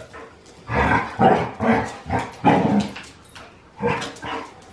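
Dogs barking in quick bouts of short, sharp barks during rough play. One dog is a large yellow Lab-type and the other a small black dog.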